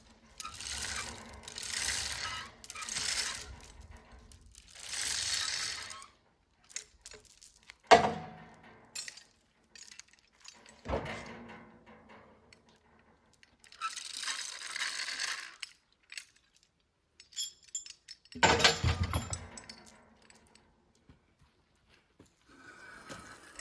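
A log being hoisted onto a sawmill with a cable rig. Repeated scraping strokes come first, then a sharp thud about eight seconds in and another a few seconds later. Near the end there is a heavier thud with metal clanking and chinking.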